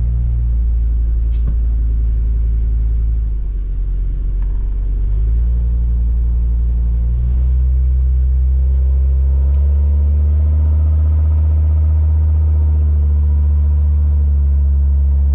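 Pickup truck engine running at low driving speed, heard inside the cab as a steady low drone. The engine note dips briefly about three to four seconds in, then settles stronger and steady from about ten seconds on.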